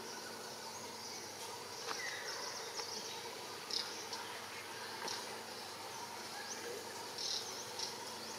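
Insects chirping in short, high bursts at irregular intervals over steady outdoor background noise.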